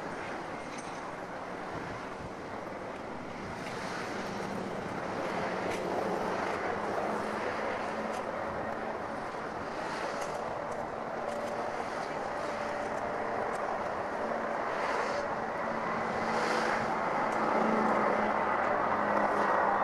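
Airplane engine noise growing steadily louder as the aircraft approaches, with a steady hum and whine coming up in the second half.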